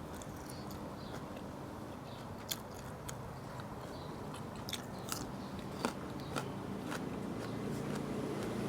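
A person chewing close to the microphone, with scattered sharp, crisp bites and mouth clicks.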